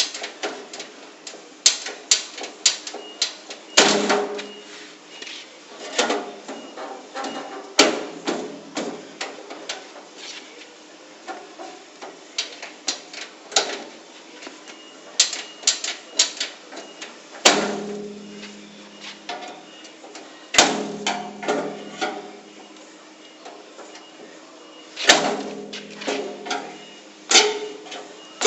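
A pry bar levering and scraping at the door edge of a Modul-Safe metal safety locker: a run of irregular metal clanks, knocks and scrapes, with a few heavy strikes that ring out, as a break-in attempt fails to force the locked door.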